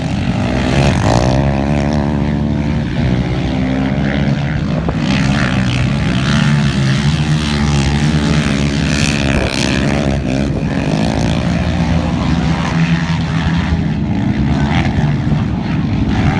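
ATV engines running, their pitch rising and falling as they rev up and down.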